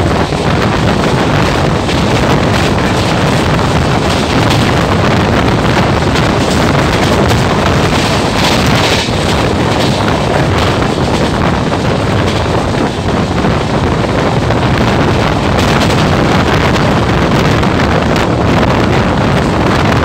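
Wind rushing over the microphone at the open door of a passenger express train running at high speed, over the steady rumble of the coaches on the rails.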